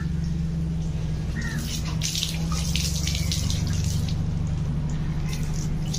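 Water from a garden hose running into and through a bamboo tube as it is washed out, splashing and spattering onto wet concrete.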